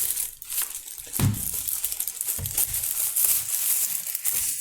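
Plastic packaging crinkling and rustling continuously as a new mechanical keyboard is lifted out and unwrapped.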